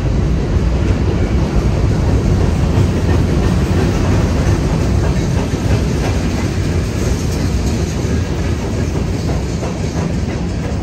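CSX freight train rolling past: a steady, loud noise of steel wheels running on the rails.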